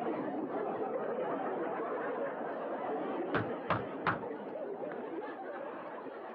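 Audience laugh track, a steady crowd laughing and chattering that slowly fades. A bit over three seconds in come three quick, sharp knocks.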